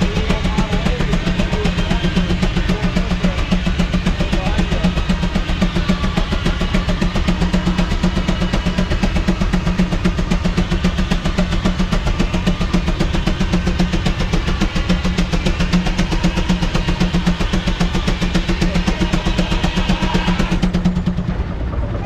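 Steam traction engine running under load, belted to a sawmill, its exhaust chuffing in a rapid, even beat of several strokes a second over a steady low hum.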